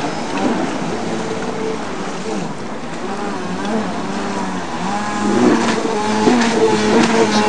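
Yamaha WaveBlaster jet ski's two-stroke engine revving, its pitch sliding up and down under the hiss of spray. From about five seconds in it gets louder and jumps between steady pitches in quick steps.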